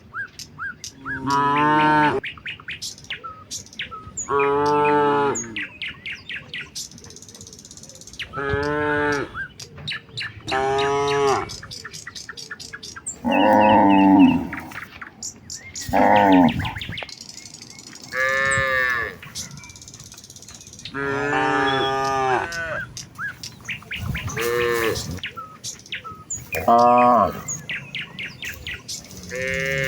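Cattle mooing, about a dozen separate calls one after another, each lasting roughly a second.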